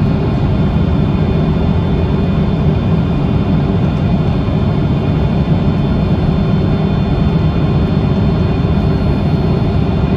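Steady roar of a jet airliner heard from inside the cabin: engines and airflow, with a faint steady whine on top.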